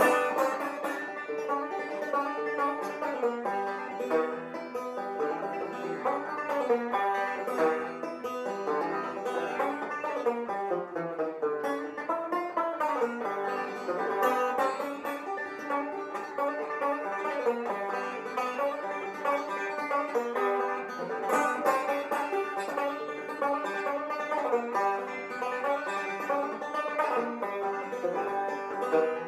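Banjo music: a lively plucked banjo tune with quick picked notes.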